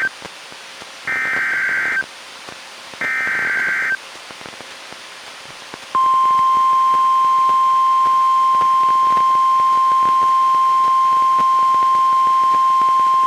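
NOAA Weather Radio Specific Area Message Encoding (SAME) alert header: two buzzy data bursts about a second long and a second apart, just after the tail of a first one. After a pause, the steady 1050 Hz warning alarm tone starts about six seconds in. Together they encode and announce a severe thunderstorm warning for weather radio receivers.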